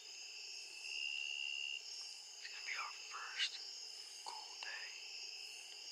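Evening insect chorus of crickets: a steady high-pitched drone in several pitches, with one insect louder for about a second near the start. Soft whispering comes over it a couple of times.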